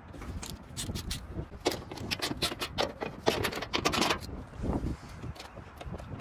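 Cover latches and body panels of a Bobcat E32 mini excavator being unlocked and handled: a string of irregular clicks, knocks and scrapes over a low rumble.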